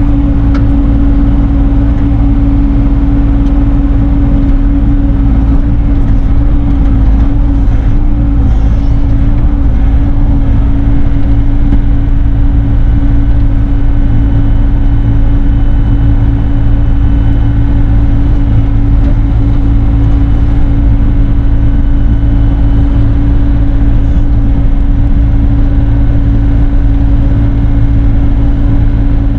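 Bobcat E42 mini excavator's diesel engine running steadily at a constant pitch, with a held hum over a deep low drone.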